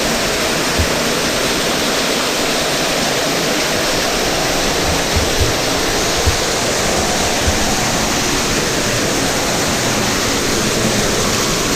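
Loud, steady rush of an underground waterfall in a cave, with a few brief low thumps.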